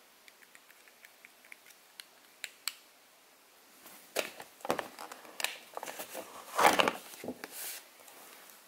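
Hands handling packaging: a string of faint clicks for about three seconds, then a few seconds of rustling and scraping as a smart LED bulb is lifted out of its cardboard box, loudest shortly before the end.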